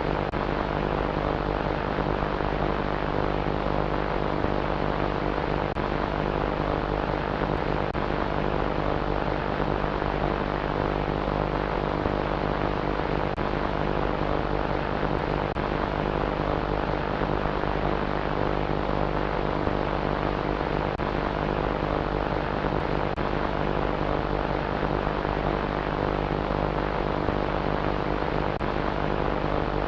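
The Lethal Ape monster's 'close call' sound effect: a steady, unchanging drone of many layered tones over a hiss, holding the same level throughout.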